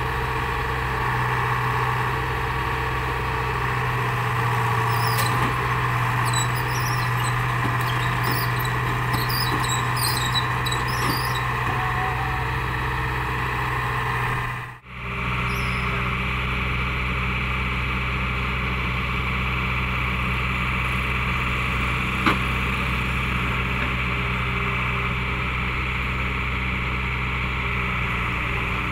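JCB JS81 excavator's diesel engine running steadily under load as the machine climbs onto a flatbed lorry, with scattered high squeaks in the first half. The sound drops out briefly about halfway through, then the engine runs on.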